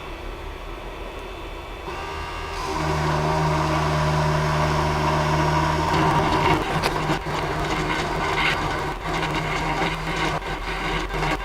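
Creality CP-01's CNC spindle motor starts up about three seconds in with a steady hum, then from about six seconds the engraving bit cuts into the workpiece with irregular scraping and ticking over the spindle hum.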